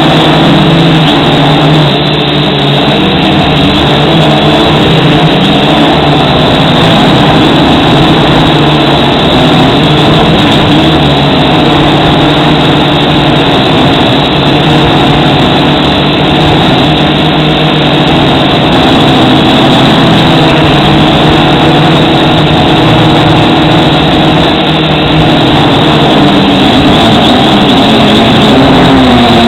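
A loud, steady motor hum made of several pitches that waver slightly up and down.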